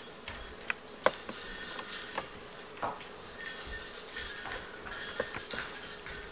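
Jingle bells shaking in uneven bursts, a high bright ringing that comes and goes, with a few light clicks in between.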